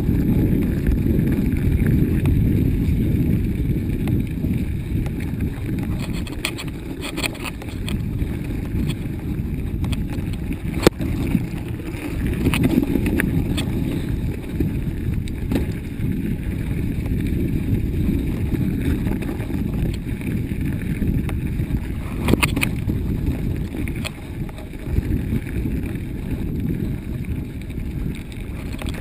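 Mountain bike ridden down a snowy, bumpy forest trail, heard from the rider's camera: a steady low rumble of wind on the microphone and tyres over snow, with occasional sharp clicks and knocks from the bike over bumps, the sharpest about eleven seconds in.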